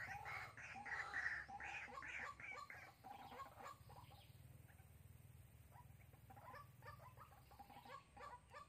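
White-breasted waterhen used as a caged decoy, calling a run of short, clucking notes repeated several times a second. The calls are loudest for the first three seconds, then go on more faintly.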